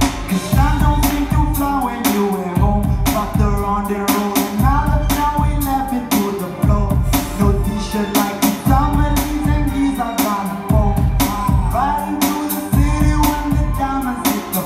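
Live electronic-backed song: a steady drum beat with heavy bass under a sung melody.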